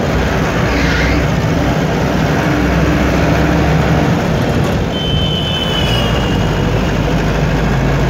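Vehicle driving along a winding road: steady engine hum under loud road and wind noise. A brief high-pitched whine about five seconds in.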